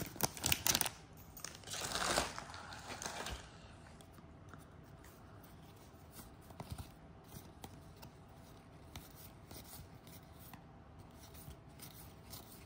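A trading-card pack wrapper being torn open and crinkled in the hands in a few loud rustling bursts over the first three seconds. After that, the basketball cards are slid and flicked one by one, heard as faint scattered clicks and rustles.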